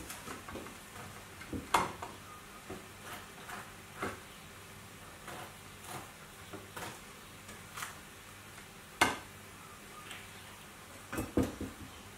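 Kitchen handling sounds: a handful of sharp clinks and knocks of crockery and utensils, the loudest about nine seconds in and a quick cluster near the end, over a faint steady sizzle from a frying pan of prawns and vegetables simmering in birch sap.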